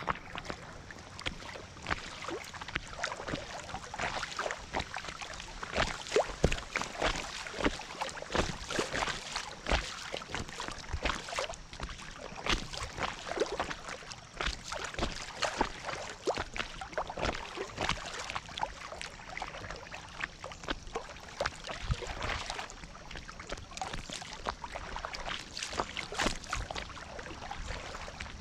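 Fast floodwater rushing and splashing against the bow of an inflatable kayak, a dense run of irregular sharp splashes and slaps over a steady rush of water.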